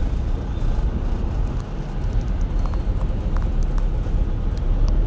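Steady low rumble of idling traffic in a queue of container trucks and motorcycles, heard from inside a car, with a few faint clicks in the middle.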